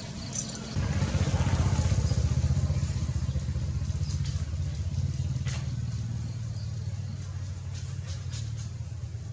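A motor engine running with a fast low pulsing, coming in loud about a second in and then slowly fading away.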